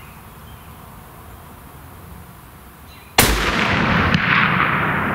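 A single .338 Lapua Magnum rifle shot about three seconds in, a sharp blast followed by a loud lingering rush of sound that fades slowly.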